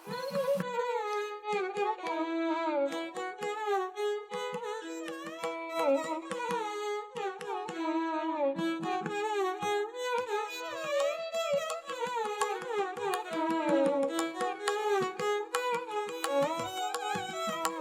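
Background instrumental music: a melody of sliding, bending notes over a steady drone note, with light percussive strokes.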